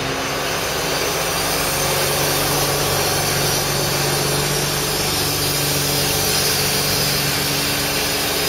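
Ford F-650 tow truck's Cummins diesel engine idling steadily, with a low hum that grows stronger for a few seconds in the middle.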